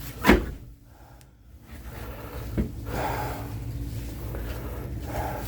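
Split oak firewood being handled and set down piece by piece while it is counted. There is a sharp wooden knock about a quarter second in, a lighter one near the middle and another at the very end, with rustling handling between them over a low steady rumble.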